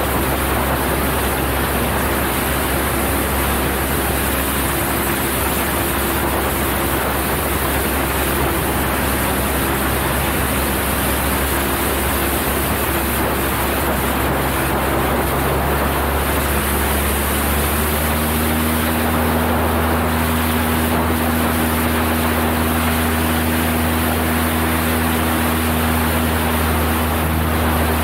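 Cessna 172's piston engine and propeller droning steadily under a loud rush of airflow. About two-thirds of the way in, the engine note steps up a little in pitch and holds there.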